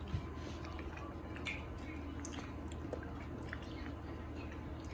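A toddler chewing strawberries: quiet, wet mouth sounds and small clicks over a steady low room hum, with a single light knock just after the start.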